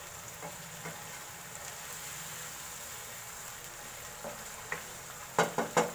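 Mutton pieces sizzling steadily in ginger-garlic paste and a little water in a pan as a wooden spoon stirs them. Near the end comes a quick run of sharp knocks.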